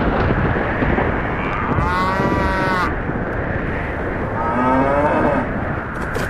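Two cow moos, about two and a half seconds apart, the second lower-pitched, over a steady rushing noise.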